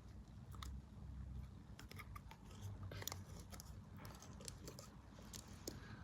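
Faint, irregular clicks and crackles of beaded slime being worked and pulled out of its tub by hand.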